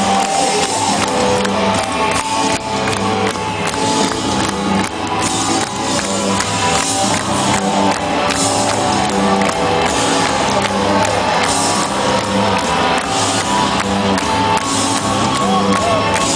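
Live rock band playing a song at full volume, with a steady beat.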